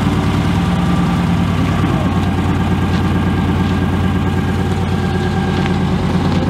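392 Hemi (6.4-litre) V8 idling steadily just after start-up, through an exhaust that is stock apart from a mid-muffler delete, with the factory active exhaust.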